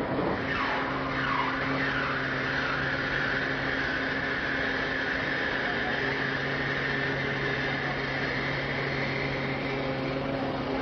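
Boeing 747 main landing gear being cycled by its hydraulic system: a high whine that glides down in pitch over the first second or so, then holds steady above a low, even hum.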